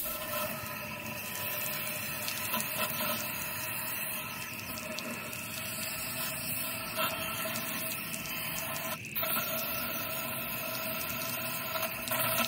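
Garden hose spray nozzle jetting water into an engine block to flush out the rust-remover: a steady hiss with a faint whistle in it, cut off for a moment about nine seconds in.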